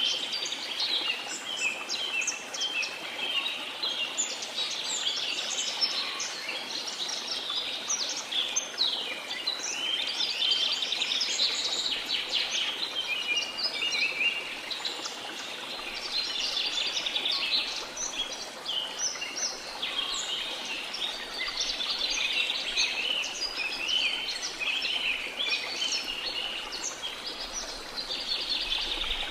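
A dense chorus of many birds chirping and trilling, the calls overlapping continuously over a faint, steady hiss.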